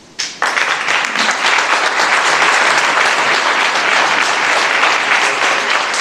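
Audience applauding. The clapping breaks out suddenly a moment after the start and keeps up steadily.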